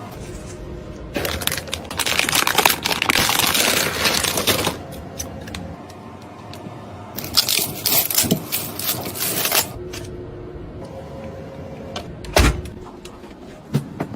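PC parts and their packaging being handled during a build: two long bouts of rustling and light metallic clattering, then two sharp knocks near the end.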